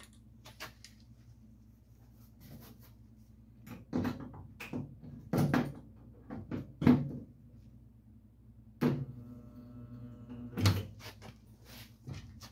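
Irregular knocks and clacks of metal tools working a dented pickup box side with welded-on pull pins, the loudest about halfway through and again near the end, with a brief hum in between.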